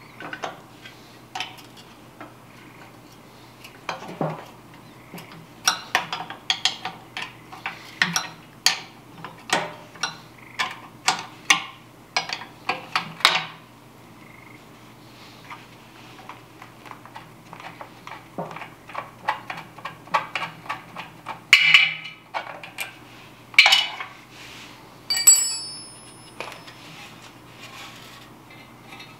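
Steel wrench clinking and tapping against the brass fittings and nuts of an old oil burner's oil pump as they are worked loose, in irregular runs of quick metallic clicks. About three-quarters of the way through, one clink rings on briefly.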